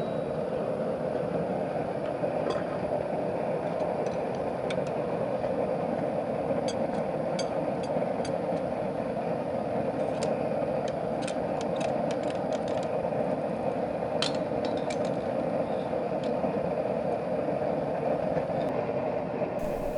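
Steady workshop machine noise with light metal clicks and clinks scattered through it.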